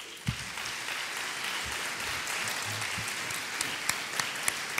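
Audience applauding, starting at once and holding steady.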